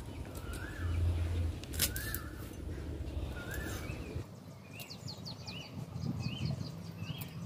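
A bird calling over and over, a short rising-and-falling note about once a second, with a few sharp snaps of drumstick stalks being cut on a curved floor blade.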